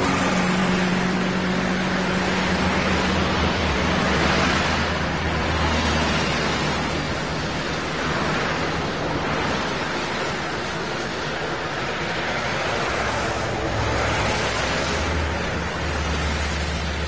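Road traffic: a steady wash of tyre and engine noise with a low engine drone underneath, and passing vehicles swelling and fading every few seconds.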